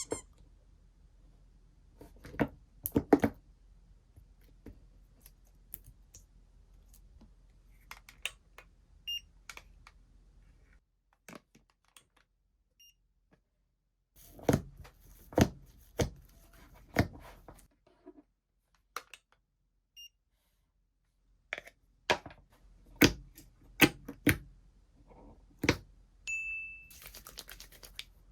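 Slime being squeezed and poked by hand, making scattered sharp clicks and pops in clusters with quiet gaps between, and a denser crackly stretch near the end.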